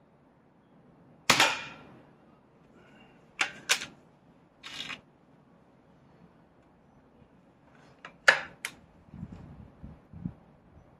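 A .177 Weihrauch HW99S spring-piston air rifle fires once about a second in, a sharp crack with a short ringing tail. It is followed by sharp mechanical clicks and clacks as the rifle is handled: a quick pair about three and a half seconds in, a short scrape-like rasp, and a cluster of clicks near the end that includes one loud clack.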